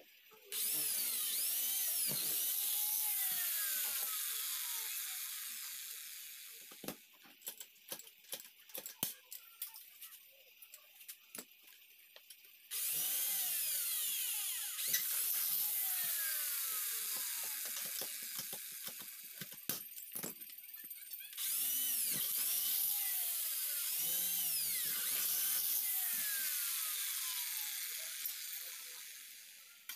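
Corded electric drill boring into aluminium square tubing in three long runs, its whine sliding up and down as the bit bites. The second and third runs come back to back, and there are scattered clicks and knocks of handling in the pause between the first and second.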